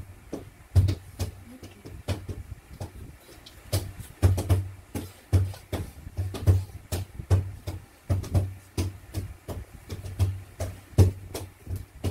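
A percussive dance beat of deep thumps and sharp clicks in an uneven rhythm, with a lull about two seconds in.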